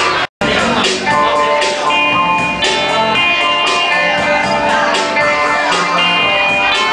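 Band music led by guitar, with held notes over a steady beat of regular percussive hits. The sound cuts out completely for a split second just after the start.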